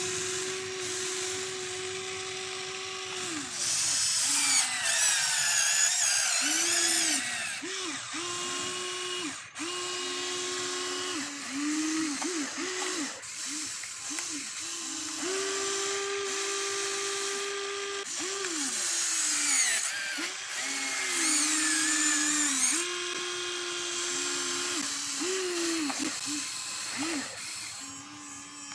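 Electric motors of a Huina RC excavator whining as it digs and loads soil. The whine starts and stops many times, sagging in pitch at each start and stop as the controls are worked. It is joined twice by higher wavering tones.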